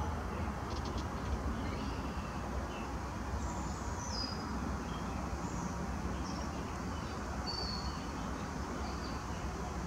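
Outdoor background: a steady low rumble, with small birds giving short high chirps and whistles now and then over it, some sliding down in pitch.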